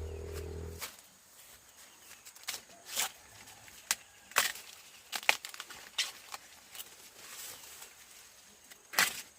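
A steady low hum that cuts off suddenly about a second in, followed by irregular sharp cracks and rustles.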